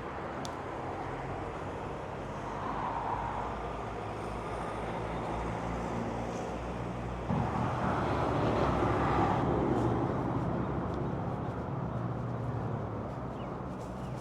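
Road traffic: a motor vehicle's engine running steadily, growing louder about halfway through as a vehicle comes close, then easing off.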